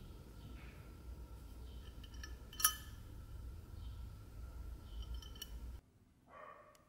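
Small metallic clinks and clicks from an antique brass powder box and its fine chain being handled and turned over, with one sharp click about two and a half seconds in, over a low steady hum that cuts off near the end.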